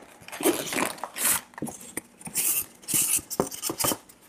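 Packaging being handled: cardboard box and foam packing inserts shifting and rubbing, with irregular rustles, scrapes and light knocks.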